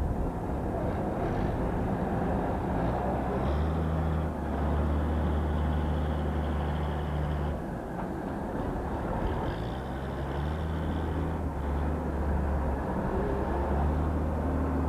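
Diesel engine of a Clark wheel loader running with a steady low drone and a faint higher whine. The drone sets in a few seconds in, drops away briefly about halfway, then picks up again, over a constant noisy outdoor background.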